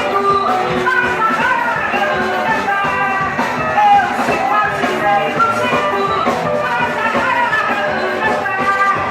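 Live frevo band playing an instrumental passage: a fast, busy melody line over electric bass and drum kit, the lead most likely the band's guitarra baiana.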